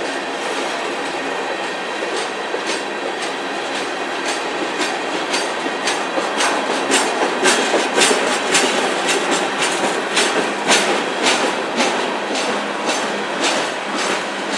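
Freight train of tank cars and open gondolas rolling past: a steady rumble of steel wheels on rail, with sharp clicks of wheels over rail joints that come thickest from about six to twelve seconds in.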